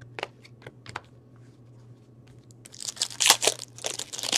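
A few light clicks of trading cards being handled, then from about two-thirds of the way in a foil card-pack wrapper crinkling and tearing as it is ripped open.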